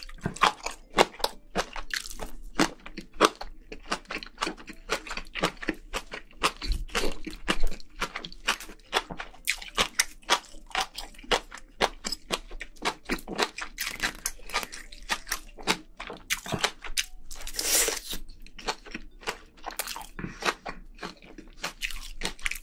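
Close-miked chewing and crunching of spicy braised seafood with bean sprouts and rice: a rapid run of sharp, crunchy mouth clicks, several a second, with one longer noisy sound about three-quarters of the way through.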